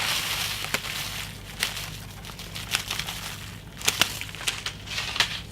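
Crinkling and rustling from things being handled, with a hiss for about the first second and a half and scattered light clicks, several close together near the end.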